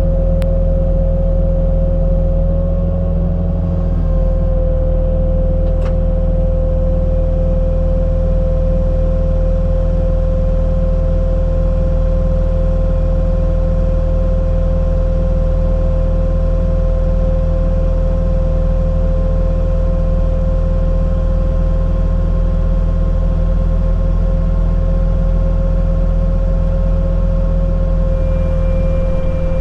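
Bobcat T750 compact track loader's diesel engine running at steady high revs, driving a 60-inch Diamond Mowers disc forestry mulcher. A deep, loud engine drone runs under a steady whine from the spinning mulcher.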